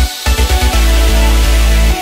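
Electronic dance music with a heavy bass line. The bass cuts out briefly at the start, then comes back with a quick run of stuttering hits before settling into a steady beat.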